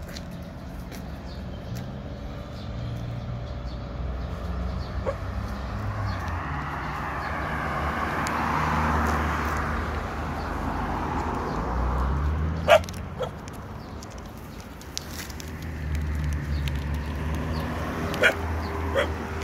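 Stray dogs at scattered food, one giving a few short, sharp barks, the loudest about two-thirds of the way through and another near the end, over a low steady rumble.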